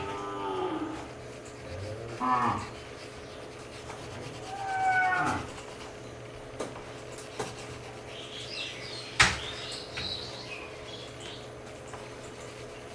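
Three drawn-out animal calls in the first five seconds, then high bird chirps and a single sharp click about nine seconds in.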